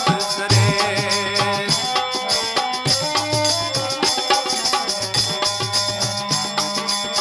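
Instrumental break in a Rajasthani chirja, a folk devotional song: a hand drum keeps a steady beat with regular high ticks under held melody notes. The singing voice stops right at the start.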